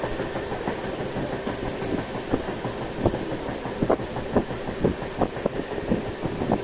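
Express passenger train running past, its wheels clicking and knocking irregularly over the rail joints above a steady rumble.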